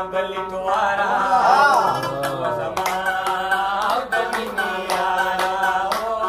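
Rabab, the Afghan plucked lute, playing a ghazal melody over a steady low drone: a sliding, wavering phrase, then quick sharply plucked notes from about halfway in.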